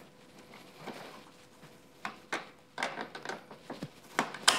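Metal clicks and knocks of pliers working the central pivot pin out of a dirt bike's spring-loaded stock foot peg. Quiet at first, then a handful of short sharp knocks in the second half.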